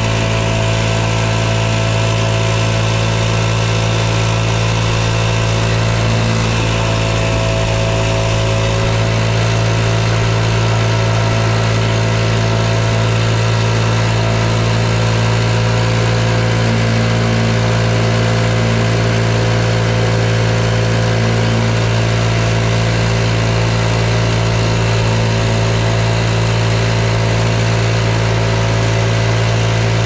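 Backpack leaf blower's small engine running steadily at idle, with a strong low hum that holds the same pitch throughout.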